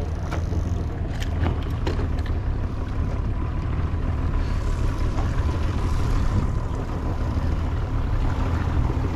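Outboard motor running steadily at trolling speed, with wind and water noise. A few short sharp clicks come in the first two seconds.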